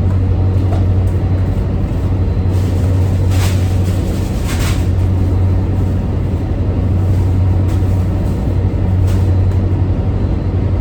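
Steady, loud low drone of a towboat's onboard machinery running, with two short rushes of noise at about three and a half and four and a half seconds in.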